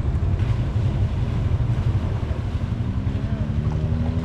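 Can-Am X3 side-by-side's engine running with a heavy low rumble. From about three seconds in its note climbs as it speeds up.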